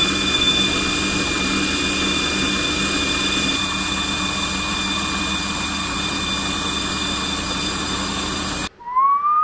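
A metal lathe runs steadily with its tool cutting an aluminium AN16 weld-on port to enlarge the hole, giving an even motor-and-gear hum with steady tones over cutting hiss. The sound cuts off abruptly near the end, and a short rising whistle-like tone follows.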